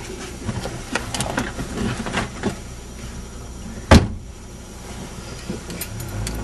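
Inside a car: scattered small knocks and rustling from people shifting in the seats, then one loud sharp thump about four seconds in, over the low rumble of the car.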